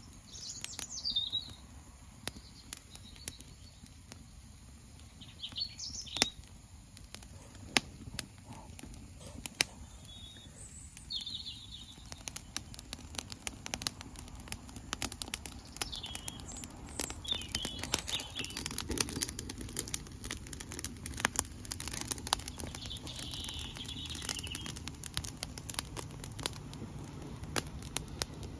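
Rose prunings burning in a metal fire pit, crackling and popping with sharp snaps that come thicker after about twelve seconds. Songbirds call with short chirps every few seconds.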